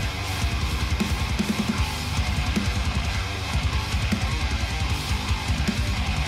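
Background rock music with guitars and drums and a steady beat.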